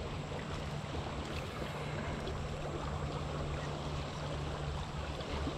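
Steady rushing of a river running over shallow rapids.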